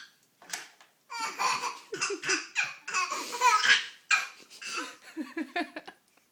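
A baby laughing, a run of laughs that starts about a second in and goes on until near the end.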